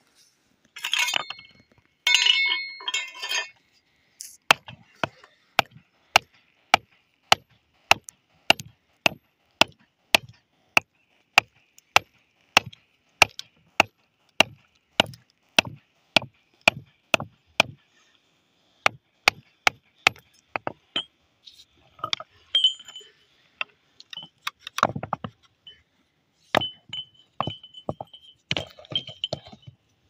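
A metal hand tool tapping on a river boulder: sharp clinks in a steady rhythm of about two a second for some sixteen seconds, then more uneven strikes near the end. A short noise comes before them in the first few seconds.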